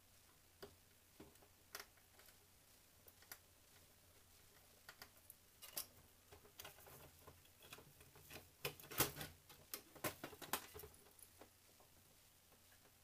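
Scattered light clicks and taps of a metal Fleischmann V200 model locomotive's body shell and chassis being handled and fitted. They grow busier about eight or nine seconds in, with the sharpest click a second later.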